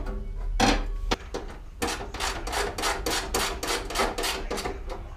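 A metal electric garage heater being hung on its wall bracket: a knock about half a second in, then a quick run of sharp knocks, about four a second, for some three seconds.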